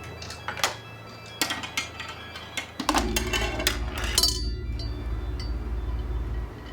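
Homemade chain-reaction toy machine at work: a scatter of sharp clicks and clinks from its small parts, then, about three seconds in, a steady low rumble that runs for about three and a half seconds and stops.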